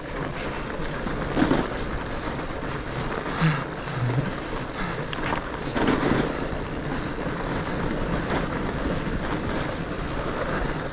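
Steady rushing ride noise of a fat bike going down a snowy trail: wind on the action-camera microphone mixed with the studded tyres rolling over the snow, with a few brief louder jolts.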